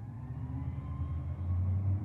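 Garbage truck's diesel engine running with a low steady rumble that swells about a second and a half in.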